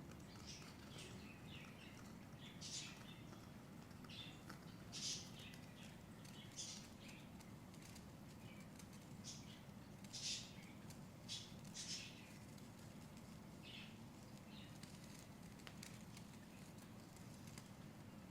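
Hands massaging an oiled leg: brief soft rubbing and swishing strokes of palms on oily skin, irregularly spaced every second or two. A faint steady low hum runs underneath.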